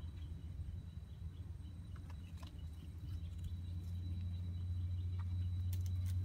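A steady low hum, louder in the second half, with a thin steady high tone over it. A few light clicks, pebbles shifting under walking cats' paws, come about two seconds in and near the end.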